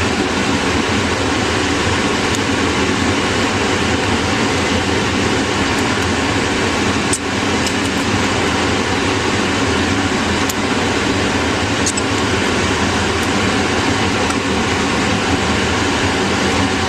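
Steady air-handling or fan noise with a low hum, with a few faint sharp ticks, about seven, ten and a half, and twelve seconds in.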